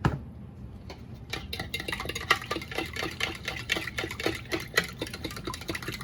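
A knock as something is set down, then about a second in a utensil starts stirring or whisking lemon vinaigrette in its container, clicking rapidly and evenly against the sides, several strokes a second.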